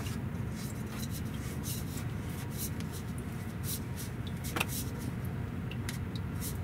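A steady low rumble with a few faint, scattered clicks and scrapes as a new oil filter is threaded onto its mount by hand, one click a little clearer about four and a half seconds in.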